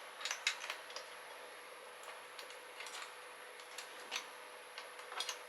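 Scattered light clicks and taps of plastic parts being handled, as the wheels and their pins are fitted onto an electric pressure washer's body.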